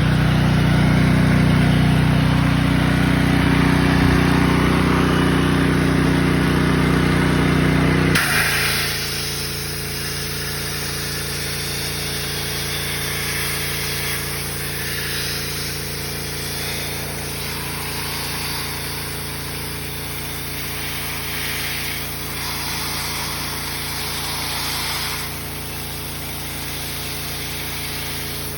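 A motor runs with a steady hum. About eight seconds in, the hum changes abruptly and hissing blasts of air start in bursts, blowing loose paint off the poorly bonded factory primer.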